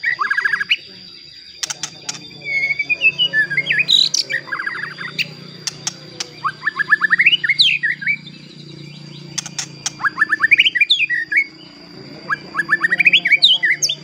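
White-rumped shama singing in five quick bouts of rapid repeated notes and rising whistled sweeps, with short pauses between phrases.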